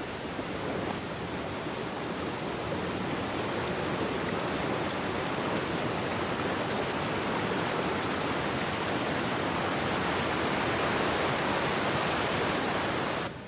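Fast mountain water rushing over rocks, a steady white-water noise that cuts off suddenly near the end.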